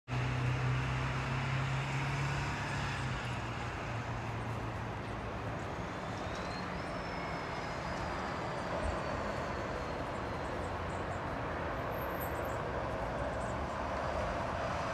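Steady rumble of distant road traffic, with a low engine hum over the first few seconds and a faint high whine that rises and then slowly falls about halfway through.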